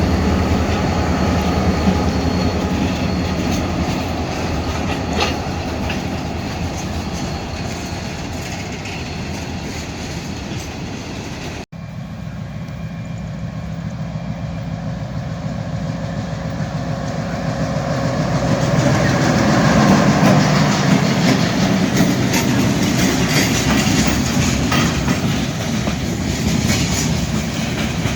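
Freight train passing, its cars rolling by with wheels clicking over the rail joints. The sound breaks off abruptly about twelve seconds in, and a second train passing builds up louder.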